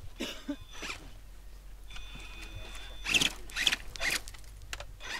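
Radio-controlled off-road model truck driving in short rasping bursts, several quick ones clustered about three to four seconds in, with a faint steady high whine underneath.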